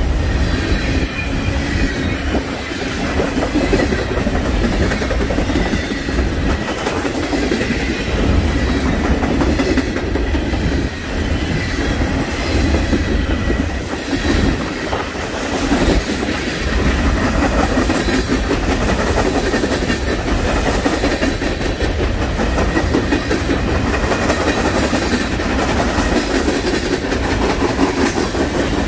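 Freight train cars rolling past, steel wheels clacking over the rail joints in a loud, steady rumble.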